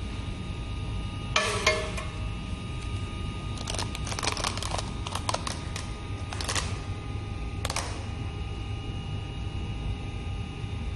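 Short bursts of rustling and crinkling from a pleated paper honeycomb blind being handled: once about a second and a half in, then several times between about four and eight seconds in, over a steady low hum.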